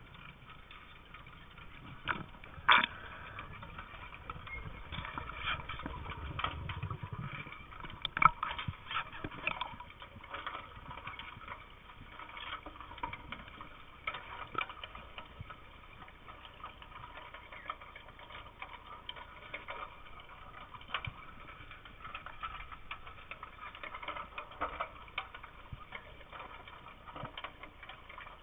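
Underwater sound picked up by a submerged camera: a steady hiss with irregular sharp clicks and knocks, the loudest about two and a half seconds and eight seconds in, and a low rumble during the first several seconds.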